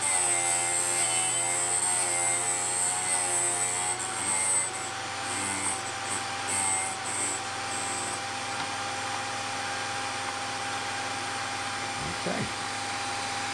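OTMT drill bit sharpener running, its wheel grinding the point of a drill bit as the collet holder is rocked back and forth, the grinding pitch wavering with each rock. About five seconds in the grinding dies away and leaves the steady hum of the motor, the sign that this side of the point is fully ground. There is a brief scrape near the end.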